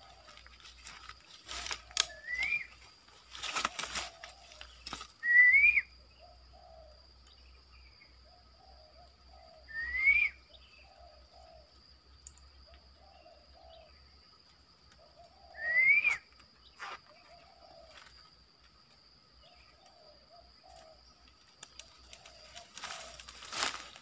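Short rising whistles, four of them a few seconds apart, a lure call to draw in a black-naped oriole. Soft chattering calls in between.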